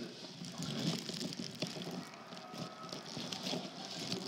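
Rosy-faced lovebird moving about in the leaves of a houseplant: soft rustling with many small clicks and ticks.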